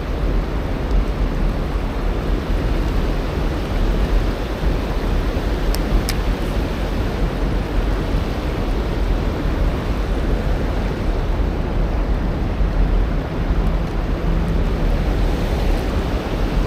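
Steady rush of white-water rapids below a river dam, a loud even noise with no pauses.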